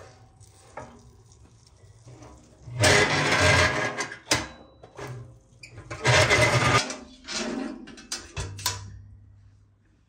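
A metal cake pan scraped across the floor of a steel wood stove's oven in two loud grating slides, followed by metal clanks and knocks as the oven door is swung shut.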